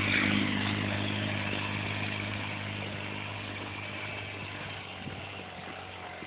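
Linhai Joker 50cc quad's small engine running at a steady speed as the quad drives off through snow, fading gradually as it moves away.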